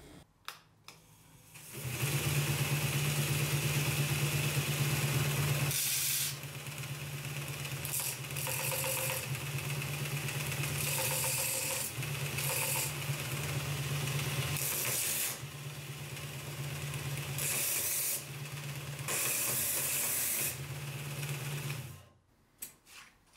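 Small electric motor driving a narrow sanding belt over a small-wheel belt grinder attachment: a steady low hum with belt hiss, starting about two seconds in and stopping near the end. The hiss swells several times. The builder judges this motor too low in power and RPM for the job.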